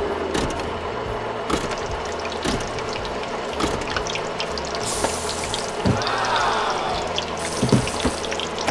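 Frying oil sizzling and crackling steadily as drumsticks and wings pass through the fryer, with a short rising-and-falling whistle-like tone about six seconds in.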